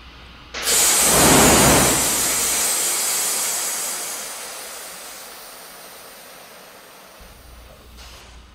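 Time-travel arrival sound effect for the DeLorean time machine: a sudden loud blast about half a second in as the car reappears, then a long hissing rush of vapour that slowly fades over about six seconds. A short click comes near the end.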